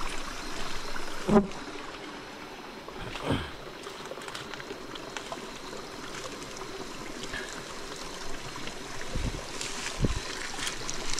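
Small rocky stream trickling steadily, with a few scattered knocks and bumps, the loudest about a second and a half in.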